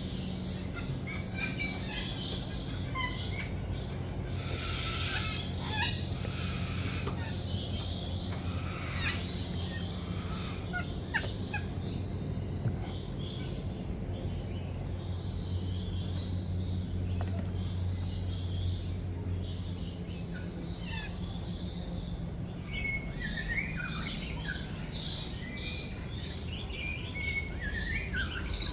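Many lories and lorikeets chirping and calling over one another in a walk-through aviary, in short, overlapping calls. A steady low hum runs underneath and fades about two-thirds of the way through.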